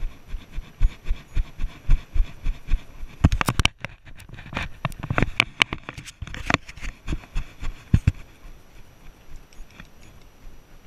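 Icelandic horse tolting, heard through a chest-mounted action camera: a steady run of low, muffled thumps about four a second from the horse's footfalls and the rider's movement. In the middle comes a cluster of scraping and clicking on the camera, after which the thumps are fainter.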